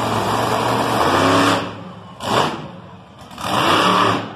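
Monster truck engine revving hard in surges: a long loud run, a short sharp blip a little over two seconds in, then another loud surge as the truck rears up onto its back wheels.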